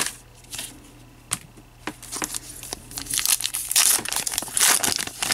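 Foil trading card pack being torn open and crinkled by hand. A few light clicks come first, then louder crinkling and tearing from about halfway through.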